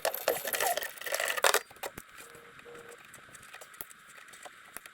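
Rustling and light clattering of small objects being handled for about a second and a half, then a few faint scattered clicks.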